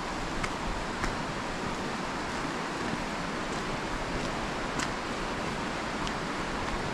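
Steady rushing outdoor background noise with a deep rumble, like wind on the microphone, and a few faint clicks scattered through it.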